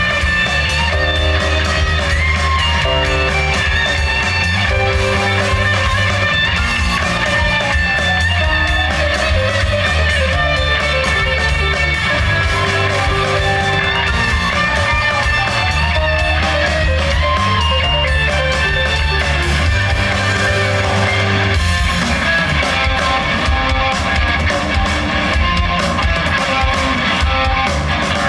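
A rock band playing live, led by guitars, with bass and a steady drum beat.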